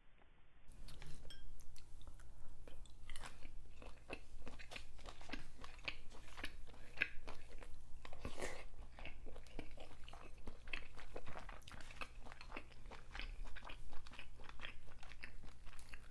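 A person chewing and biting food from a seafood boil, picked up by a close microphone: a quick, irregular run of short mouth clicks that starts about a second in.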